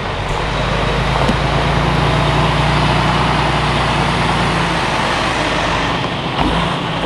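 Diesel semi truck hauling a loaded flatbed trailer driving slowly past, its engine a steady low drone; the engine note drops a little about five seconds in.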